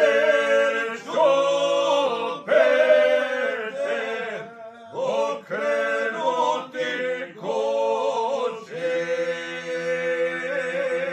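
Men singing an unaccompanied Serbian izvorna folk song in drawn-out phrases with short breaks between them. The last phrase is held as one long note for the final few seconds.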